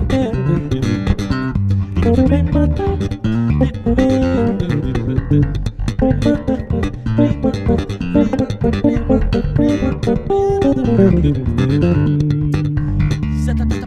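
Two electric basses playing an instrumental piece together, with a plucked bass line under melodic runs that climb and fall. Near the end they settle into long held notes.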